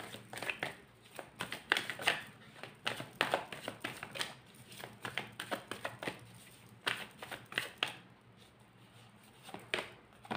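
Tarot cards being shuffled by hand: a dense, irregular run of quick card flicks and slaps, thinning out briefly near the end.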